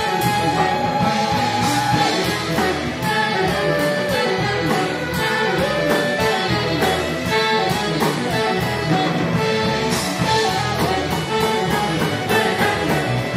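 Live rock band playing: electric guitars, saxophones and a drum kit, with a steady drumbeat.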